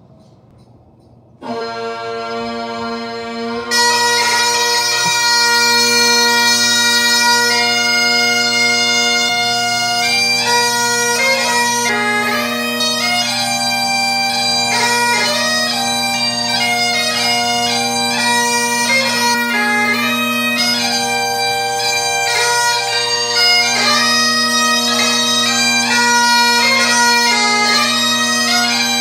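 Great Highland bagpipe striking in about a second and a half in, with the chanter's melody entering about two seconds later and then playing a 2/4 march over the steady drones.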